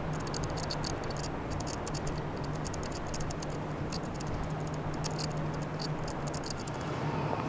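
Outdoor city ambience at night: a steady low hum under a haze of noise, with irregular light ticking and clicking throughout.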